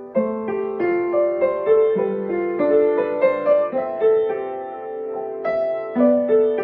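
Acoustic upright piano played with both hands: a melody in the middle range, a few notes a second, each struck and left to ring over lower held notes.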